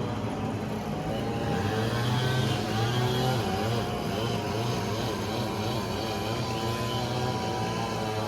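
Heavy diesel machinery, a bulldozer or excavator engine, running with its pitch rising and falling as it works.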